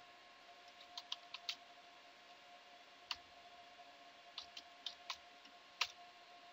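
Computer keyboard keys tapped in short irregular runs, about ten sharp clicks, as a command is typed. Under them runs a faint, steady electrical hum.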